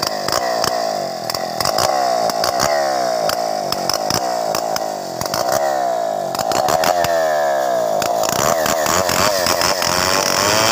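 Stihl 070 two-stroke chainsaw running under load as it cuts lengthwise through a timber slab, with a rapid, steady clatter. About eight seconds in, its note starts to waver up and down.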